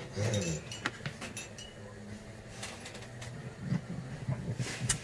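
Light clinks and taps of an upturned drinking glass pressed down through rolled pizza dough onto a silicone baking mat to cut out rounds, with a faint voice underneath.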